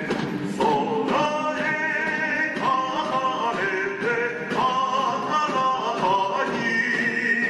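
Background music: a melody of held notes stepping up and down in pitch.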